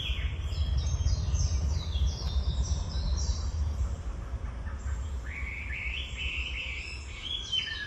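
Birds chirping in series of short, falling notes: a high series in the first few seconds and a lower series from about five seconds in, over a steady low rumble.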